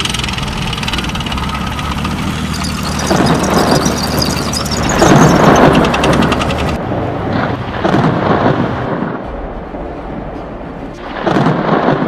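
Sound effects of a tank engine rumbling with clanking tracks, which cut off abruptly just past halfway, and heavy thunder crashes that come in several surges. They stand in for loud snoring.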